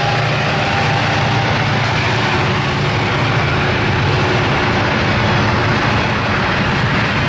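A freight train passing close by: a steady, loud rumble of locomotive engines and rolling cars on the rails.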